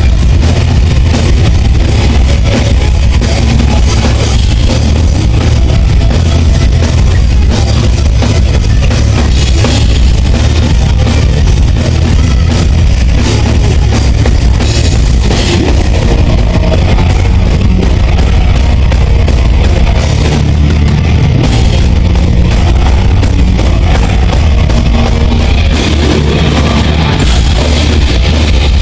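Live heavy rock band playing at full volume: distorted electric guitars, bass and a pounding drum kit, dense and loud throughout.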